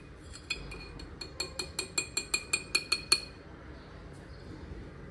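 A steel spoon clinking quickly against a steel or glass kitchen vessel, about a dozen ringing taps that come a little faster toward the end and then stop.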